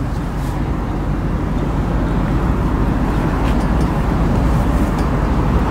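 BMW 745Li's 4.4-litre V8 idling steadily at its dual exhaust pipes: an even, low exhaust note.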